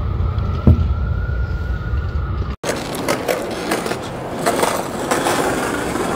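City street traffic noise: a steady low engine rumble with one knock, cut off abruptly about two and a half seconds in, then brighter, clattering street noise.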